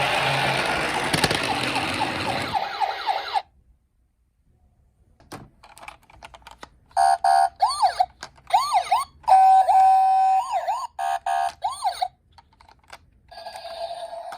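Toy minicar electronic sirens. A siren sound cuts off about three seconds in; after a pause with a few clicks, a toy siren chip plays rising-and-falling wails broken up by steady pulsed tones for about five seconds, and another siren sound starts near the end.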